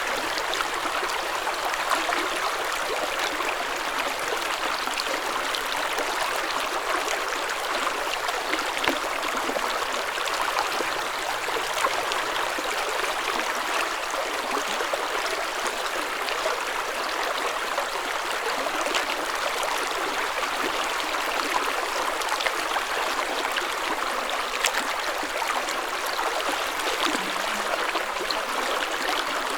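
Spring water flowing in a stream, a steady rush with many small splashes and drips.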